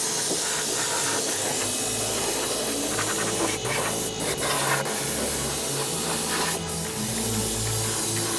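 Steady hiss of compressed air spraying, broken by a few brief pauses.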